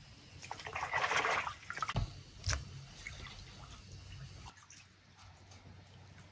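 Water splashing and dripping in a metal basin as fish are rinsed and cleaned by hand, followed by two dull knocks about half a second apart.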